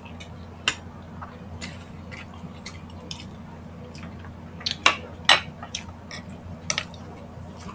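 Eating and utensil sounds: scattered sharp clicks from mouths and from spoons and forks against plates and glasses, a cluster of them about five seconds in, over a steady low hum.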